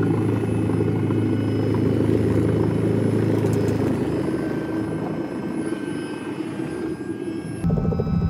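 Robinson R66 Turbine helicopter's Rolls-Royce RR300 turboshaft engine and main rotor heard from inside the cabin, a steady loud drone with a low hum, on approach to land. Near the end the sound changes abruptly to a heavier low rumble.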